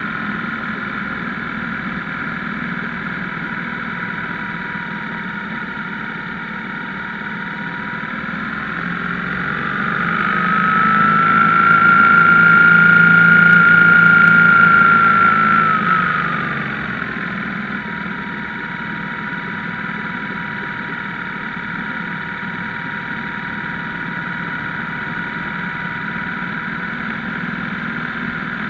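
BMW R1150GS motorcycle's boxer twin engine running under way. Its note rises in pitch and loudness about a third of the way in, holds higher for a few seconds, then falls back just past the middle to its earlier steady note.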